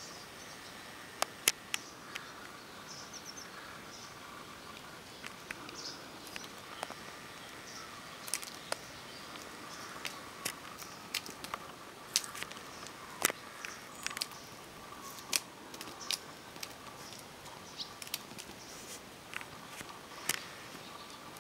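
Irregular sharp taps and light scrapes on concrete as a kitten pounces and scrambles after a toy dangled on a string, against faint outdoor background with a few soft bird chirps.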